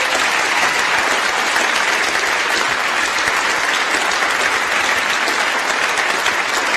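A packed theatre audience applauding steadily, a dense, even clapping that keeps up without a break.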